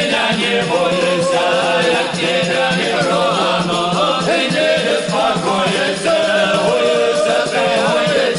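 Cossack choir singing a folk song, many voices together in a steady, unbroken stretch.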